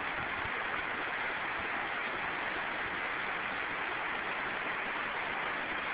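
Floodwater from an overflowing brook rushing across a paved street: a steady, even rushing noise.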